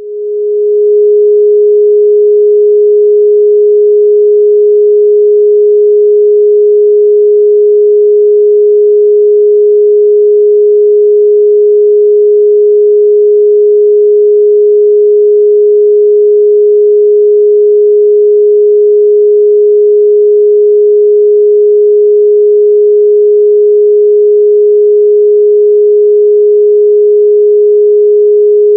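A single steady pure electronic sine tone used as a meditation tone, held at one mid pitch without change. It swells in over the first second.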